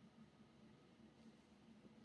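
Lasko ceiling fan running, heard only as a faint, steady low hum.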